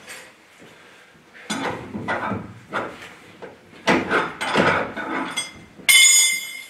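Metal parts and bolts clanking and knocking as they are handled and lined up on a truck's front axle. Near the end comes a short, loud, high-pitched mechanical whine.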